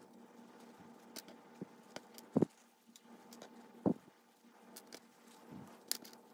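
Faint rubbing and rustling of a paper towel as a small model-locomotive gear is scrubbed free of congealed grease. Scattered small clicks and two dull thumps, about two and a half and four seconds in, come from handling, over a faint steady hum.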